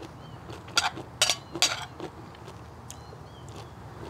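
Eating utensil clinking against a dish three times in quick succession about a second in, while someone eats.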